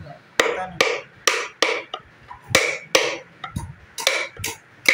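A carving chisel struck again and again into a wooden bowl, about a dozen sharp wooden taps at an uneven pace, cutting a decorative border line by hand.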